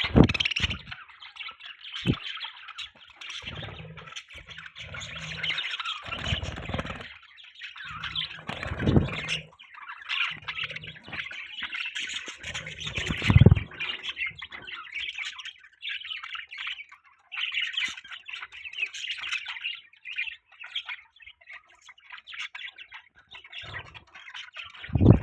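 Budgerigars chirping and chattering without a break in a busy, overlapping warble, with a few brief low thumps, the loudest about 13 seconds in.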